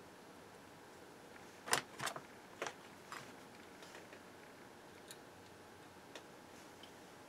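Light clicks and taps of small tools and objects handled on a workbench: a quick cluster of four about two seconds in, the first the loudest, then a few fainter scattered ticks, over a faint steady hiss.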